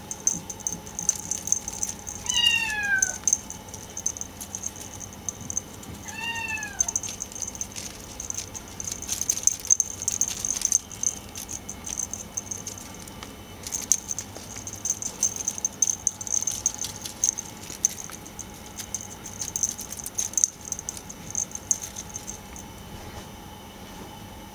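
Maine Coon kitten meowing twice, short high calls that fall in pitch, about two seconds in and again some four seconds later. Between and after them come many small rustles and clicks from the feathered teaser toy being waved and the kittens moving on the fleece cushion.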